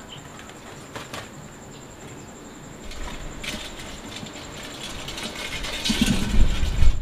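Live crabs scrabbling and clattering inside a large metal cooking pot, a scratchy rattle that builds from a few seconds in and is loudest near the end, with some heavier knocks.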